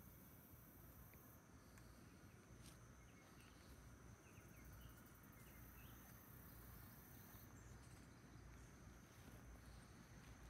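Near silence: faint summer garden ambience with a steady, high insect trill and a few faint chirps.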